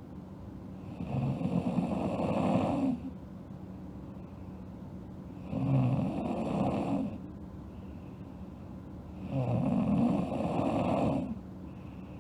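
A sleeping girl snoring: three snores in a steady rhythm, each about two seconds long, one every four seconds or so.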